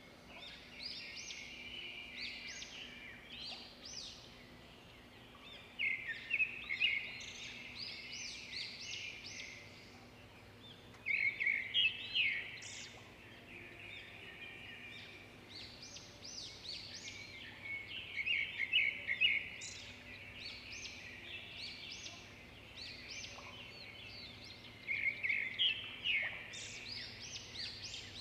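Hot oil sizzling and crackling around batter-coated paneer pieces deep-frying in a pan. The crackle comes in louder bursts every few seconds.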